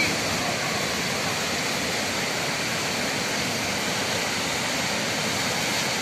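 Parvati River running in whitewater rapids over boulders: a steady, unbroken rush of water.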